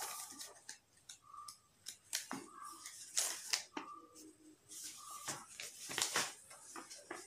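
A folded sheet of cut craft paper being opened out and handled, rustling and crackling in irregular bursts of sharp crinkles.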